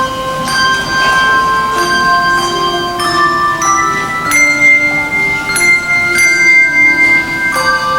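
Handbell choir playing: struck bells ring on in sustained, overlapping chords, with new notes entering every second or so.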